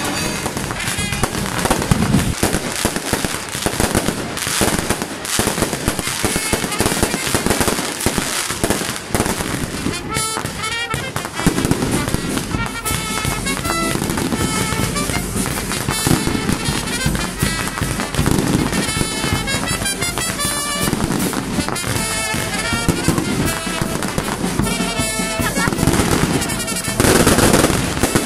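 Fireworks display: a dense, continuous run of bangs and crackling, growing louder near the end, with music playing alongside.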